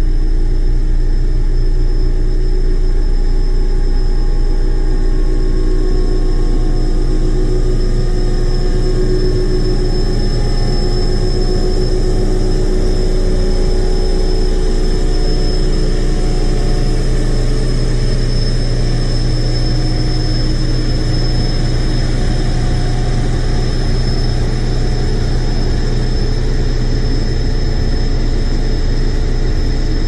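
Heavy engine running steadily, the sound of a working crane: a constant low rumble with a thin high whine above it.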